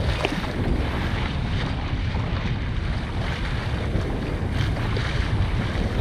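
Steady wind buffeting the microphone over the rush of water along the hull of a sailing yacht under way.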